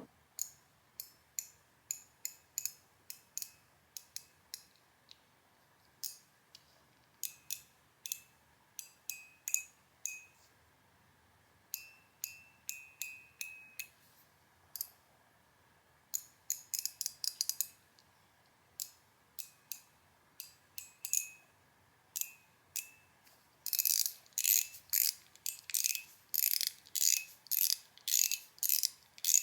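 Metal fidget toy shaped like a Tesla Cybertruck being worked by hand. It gives sharp metallic clicks, some with a brief high ring, in irregular runs. Near the end comes a faster, louder flurry of clicks.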